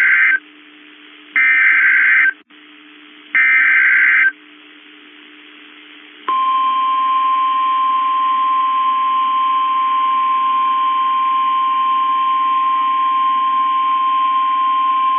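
NOAA Weather Radio SAME alert-header data bursts: the tail of one and two more harsh digital bursts of about a second each, followed about six seconds in by the steady single-pitch warning alarm tone, held for about nine seconds. Together they announce a new warning about to be read, here a tornado warning.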